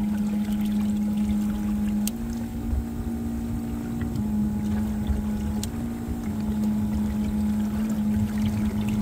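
12-volt 800-gallon-per-hour bilge pump running as the circulating pump for a cooler fish hold. It gives a steady motor hum that steps slightly up and down in pitch several times, over a low rumble.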